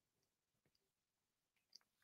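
Near silence: room tone with a few very faint clicks.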